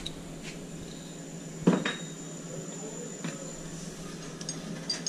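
Light metallic clinks and taps from steel parts of a valve bonnet being handled and fitted by hand. One louder knock comes about a second and a half in, and a few small ticks come near the end.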